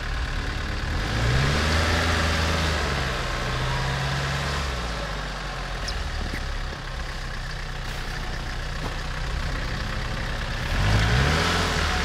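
SUV engine revving under load while towing another SUV through deep snow. The revs rise about a second in, hold for a few seconds and drop, then rise again near the end.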